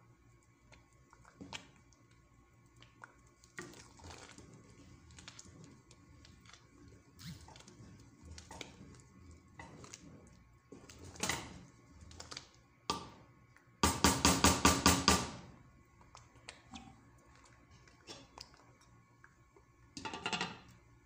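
Wooden spoon stirring and scraping thick mashed rice in a stone-coated pot, with soft knocks against the pot. About two-thirds of the way through comes a loud burst of rapid knocks lasting about a second and a half, and near the end a glass lid is set on the pot.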